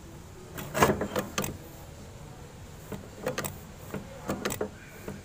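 Diesel injector nozzle on a hand-pumped nozzle tester, spraying in short, irregular bursts as the pump is worked, loudest about a second in. The nozzle atomises poorly and opens below 20 MPa, a sign of a faulty injector.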